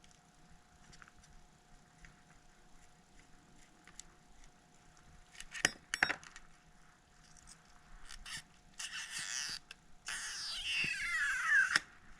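Small metal tools clicking against an iPhone 6s, then scraping with a falling squeak near the end as the old battery's stuck adhesive pull tab is worked loose.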